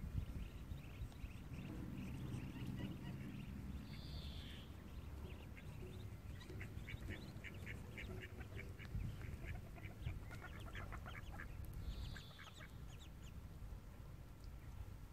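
Ducks calling, with two quick runs of short calls in the middle and a few separate higher calls, over a steady low rumble.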